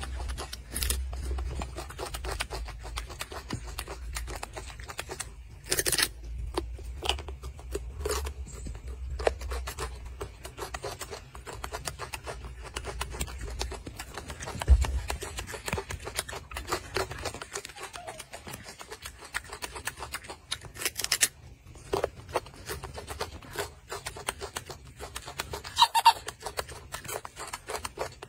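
Close-up crackling clicks and smacking of a golden snub-nosed monkey chewing a piece of fruit, with a low rumble through the first half and a brief pitched sound near the end.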